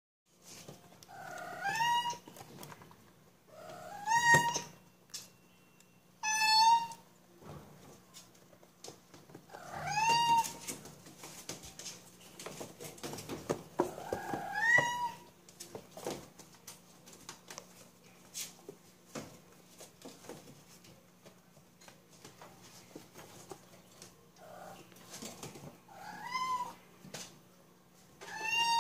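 Young kittens mewing repeatedly, about eight high, short mews spaced a few seconds apart, each rising in pitch. Faint scattered clicks of small paws moving around the cage come in between.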